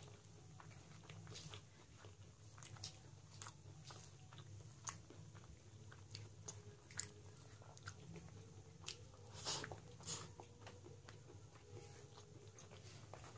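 Faint close-up eating sounds: chewing and mouth clicks, with fingers mixing polao rice and mutton curry on a plate, as a run of scattered soft clicks. The clicks cluster more loudly about nine to ten seconds in.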